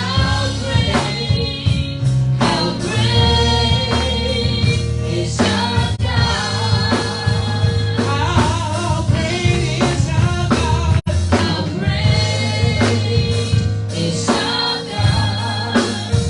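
Gospel music with singing over a steady bass line, with a momentary dropout about eleven seconds in.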